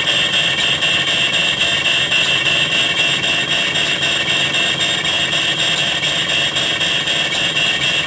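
Aircraft cockpit stall warning sounding continuously: a loud, harsh rattling buzz that pulses about five times a second, warning of an approach to stall.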